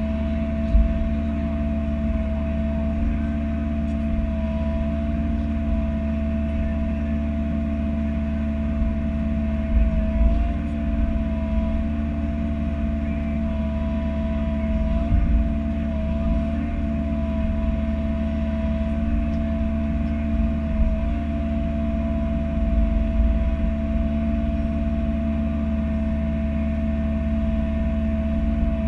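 Bobcat E42 mini-excavator's diesel engine running steadily with a constant high whine, while it digs. A few low thumps come through, around a third of the way in, near the middle and again later.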